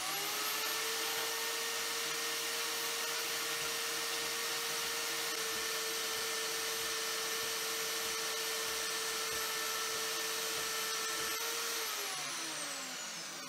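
Vevor portable metal-cutting bandsaw spinning up at the start, then running steadily with a motor whine as its blade cuts slowly into aluminium. The blade isn't suited to aluminium and clogs up, so the cut is slow. About 12 seconds in it is switched off, and the whine falls in pitch as it winds down.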